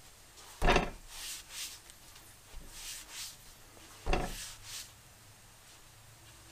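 A small zero-turn mower tire on its rim handled in gloved hands on a wooden workbench: two sharp knocks, about a second in and again about four seconds in, as the wheel bumps the bench, with short scraping and rubbing sounds between.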